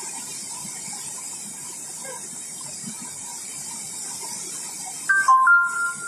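Steady rushing hiss of water jetting from the Dehar Power House spillway chute into the valley. About five seconds in, a short electronic chime of a few quick stepped notes sounds over it.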